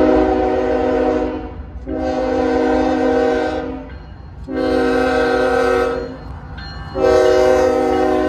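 Multi-note air horn of NS 8098, a GE ES44AC diesel locomotive, sounding the grade-crossing signal: four long blasts with short gaps between them, the fourth starting near the end and still sounding. A steady low diesel rumble runs underneath.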